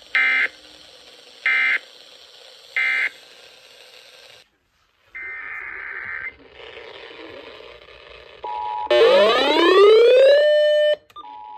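Emergency Alert System data tones: three short warbling digital bursts in a row, the end-of-message signal, then after a pause one more burst of the same kind. Near the end a steady two-note tone sounds, broken by a loud rising electronic sweep, then the two-tone attention signal of the next alert starts.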